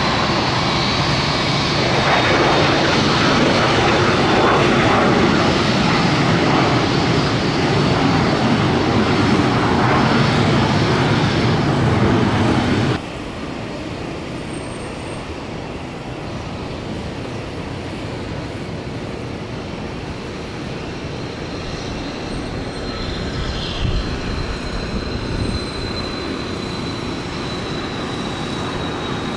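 Twin-engine business jet at takeoff power as it lifts off, its loud jet roar cutting off abruptly about 13 seconds in. Then a Cessna 560XL Citation Excel's turbofans at takeoff power during its takeoff roll, quieter, with a steady high whine that grows stronger toward rotation.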